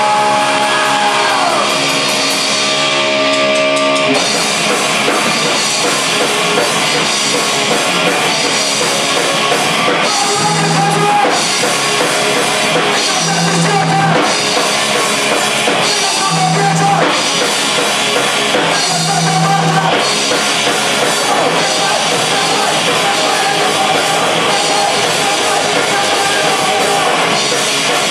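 A rock band playing live through amplifiers: electric guitars, bass, drum kit and a singer at the microphone. Held guitar notes ring out for the first few seconds, then the full band comes in with drums and plays on loudly.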